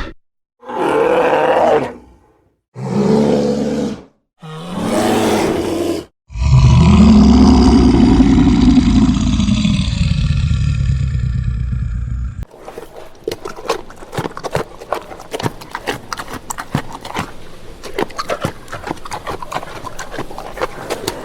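A bear roaring: three short roars, then one long loud roar lasting about six seconds that rises and falls in pitch. After that comes a crackling noise of many quick clicks.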